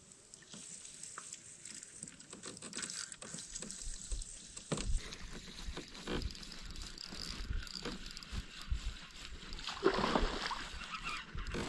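A spinning reel being cranked while fighting a hooked fish, with scattered knocks and rustles of handling that grow louder. About ten seconds in the fish splashes at the surface, the loudest moment.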